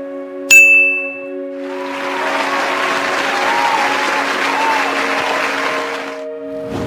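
A bright bell ding about half a second in, the answer-reveal chime, followed by about four and a half seconds of applause sound effect, over steady background music. A brief thud near the end.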